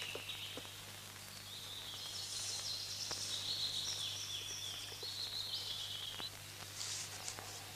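Songbirds singing in woodland, short high chirping phrases repeated over and over, over a steady low hum.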